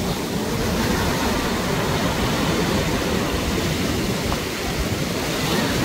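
Small waves washing up and breaking on a sandy shoreline as a steady wash of surf noise, with wind buffeting the microphone as a low rumble.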